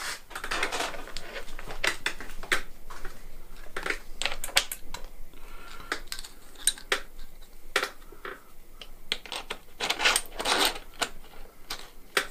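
Small metal parts of a bike bearing press clinking and clicking irregularly as the tool, its threaded rod and washers are handled and refitted by hand. There is a short scraping rub about ten seconds in.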